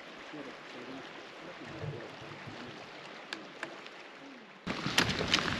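Steady outdoor background hiss with faint distant voices and a couple of small clicks; about a second before the end it turns abruptly louder, with rustling and sharp clicks.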